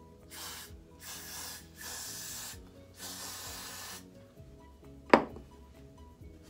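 Aerosol hairspray can sprayed in four short hissing bursts at the hairline, then a single sharp click about five seconds in. Background music plays throughout.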